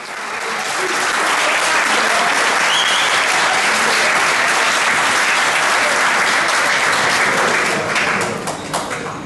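Audience applauding. It builds up within the first second, holds steady, then dies away near the end into a few scattered claps.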